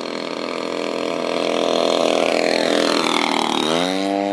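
Radio-controlled P-51 Mustang model plane's engine growing louder as it comes in on a low pass, then dropping sharply in pitch as it flies past, about three and a half seconds in.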